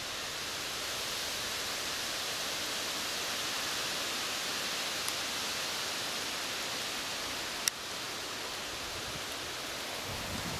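Steady, even hiss of wind stirring birch leaves and grass, with one sharp click a little before eight seconds in.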